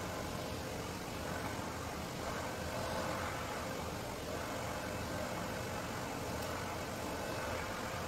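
Handheld hair dryer running steadily, blowing a constant rush of air with a faint steady tone underneath.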